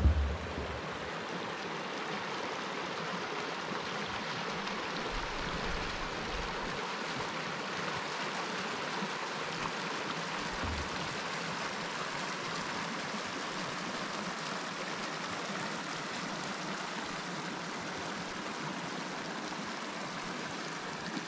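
Small creek running over rocks in shallow riffles: a steady, even rush of water.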